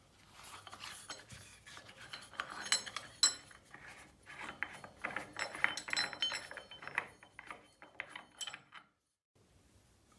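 Black metal cover of a tap being twisted and worked off by hand over the spindle, with rattling, scraping and clinking of metal on metal; the sharpest clinks come about three seconds in and again around six seconds.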